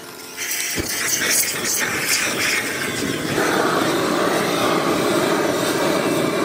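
Handheld butane gas torches blasting flame into charcoal briquettes to light them: a steady jet roar that comes on sharply and grows louder and fuller about three seconds in.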